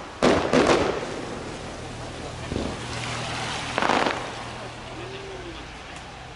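Fireworks bursting overhead: a quick run of sharp bangs just after the start, then another loud burst about four seconds in.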